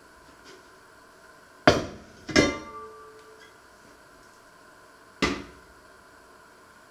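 Heavy enamelled cast iron pot and its lid set down hard: three loud clunks, about 1.7, 2.4 and 5.3 seconds in, the second ringing briefly like metal.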